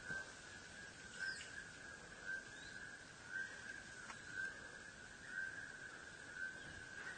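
A steady high-pitched tone that swells regularly about once a second, with a few faint, brief chirps above it.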